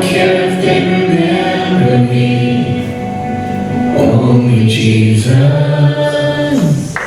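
Group of voices singing a gospel worship song, ending on a long held note that falls off near the end.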